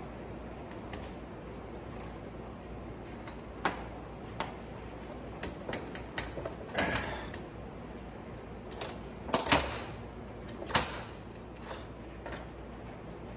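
Small metal parts of a Wilesco model steam traction engine's wheel and gear assembly clicking, clinking and knocking as they are worked apart by hand. The clicks come irregularly, with a short scrape a little before seven seconds in and the loudest knocks around nine and a half and eleven seconds in.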